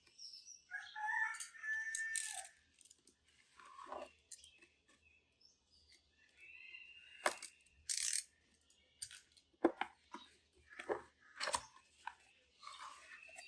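Retail packaging of headphones being handled and opened by hand: a series of sharp clicks and rustles of cardboard and wrapping, with a squeaky pitched sound about a second in.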